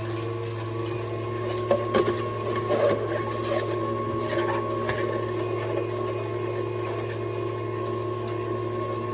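Slow single-auger masticating juicer's motor running with a steady hum, with a few clicks and crackles from produce being crushed by the auger about two to five seconds in.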